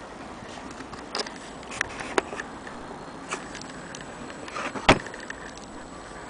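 Handling noise: a few irregular clicks and knocks, the loudest about five seconds in, over steady background hiss.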